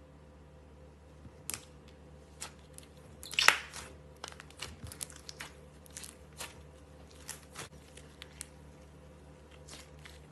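Hands playing with slime: scattered sharp clicks and pops as it is pressed and stretched, with one louder crackling crunch about three and a half seconds in.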